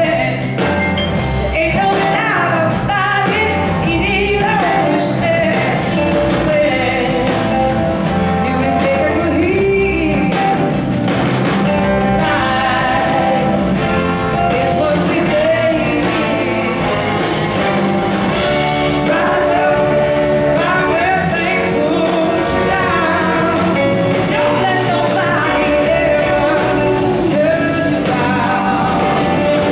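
A live blues-rock band playing: electric guitars and drums with singing, and a horn section.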